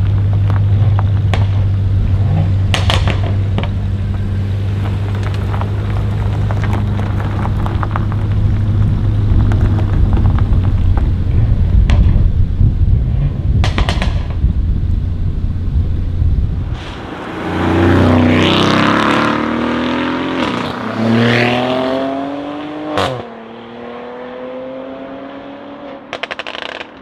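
Tuned Mercedes-AMG GLE 43's twin-turbo V6 running with a steady deep drone and loud exhaust crackles and pops. About 17 s in it accelerates away, its pitch climbing and stepping through gear changes, with another sharp crack near the end as the sound fades.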